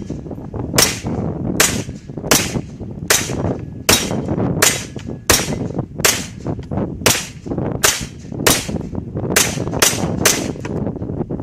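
GSG MP40 9mm blowback semi-automatic pistol firing about fourteen single shots in steady succession, roughly one every three-quarters of a second, the last three coming quicker. Wind rumbles on the microphone underneath.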